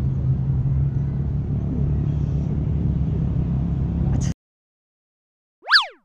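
Steady low outdoor rumble that cuts off abruptly a little past four seconds. After a moment of silence, a short electronic swoosh sound effect sweeps up and back down in pitch near the end and is the loudest sound.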